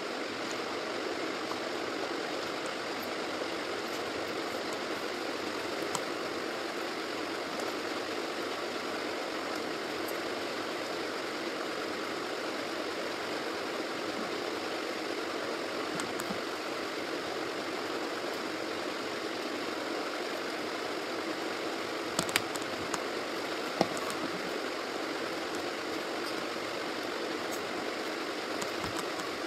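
A steady, even hiss of background noise, with a few short clicks, the loudest a little past twenty-two and near twenty-four seconds in.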